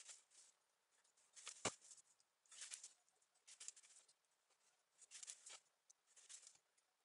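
Faint clicks and scratches of small axial fuses' thin wire leads being handled and set onto 18650 cells in plastic cell holders, in short bursts about once a second, with one sharper click about a second and a half in.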